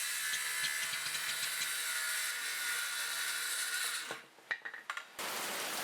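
Cordless circular saw running through a 2x4, heard fairly quietly with a steady whine. It drops away about four seconds in with a few clicks, and a steady hiss follows.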